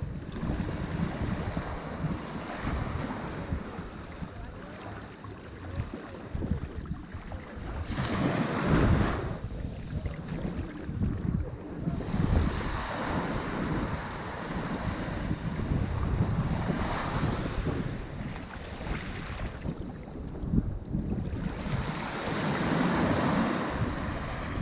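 Ocean waves breaking on a shore, the surf swelling and washing back every few seconds, with wind rumbling on the microphone.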